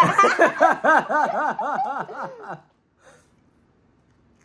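A person laughing: a quick run of about ten short 'ha' notes at roughly four a second, lasting about two and a half seconds before it stops.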